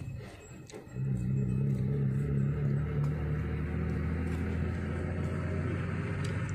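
A motor engine running with a steady low hum, which drops away briefly and picks up again about a second in.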